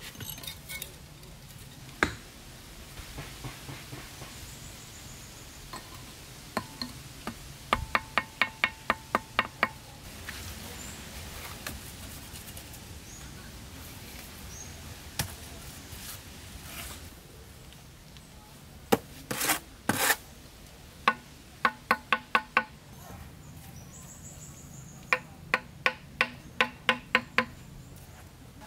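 Hand tool striking wood in quick runs of sharp knocks, about four or five a second, several runs with single heavier knocks between.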